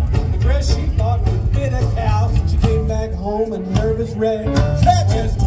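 Live rockabilly band playing: electric guitar, acoustic rhythm guitar, upright bass and drums through a stage PA.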